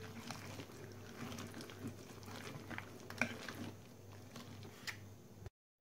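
Wire whisk stirring diced raw potatoes into thick batter in a plastic bowl: faint wet squelching with occasional light clicks of the whisk against the bowl. It cuts off abruptly near the end.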